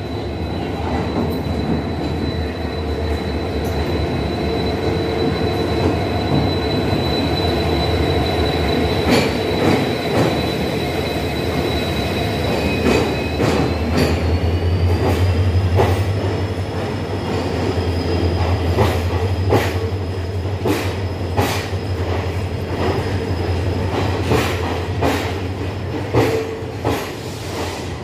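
Passenger express train rolling into a station platform: a steady low rumble with frequent clicks and knocks from the wheels, and a thin, high wheel squeal that steps up in pitch about halfway through as the coaches pass.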